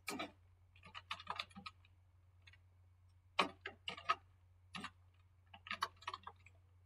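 Computer keyboard keys clicking in short bursts of typing, with a faint steady low hum underneath.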